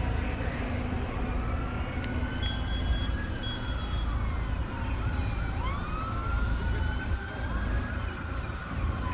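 Emergency vehicle sirens wailing, several overlapping, each slowly rising and falling in pitch. A high, evenly repeating beep sounds through the first two seconds, over a steady low rumble.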